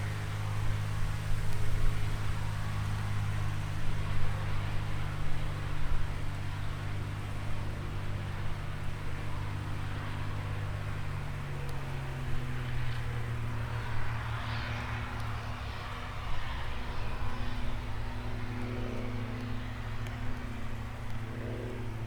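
A light aircraft's piston engine running steadily at low power, with a low hum whose pitch shifts about twelve seconds in. A rushing sound swells and fades around the middle.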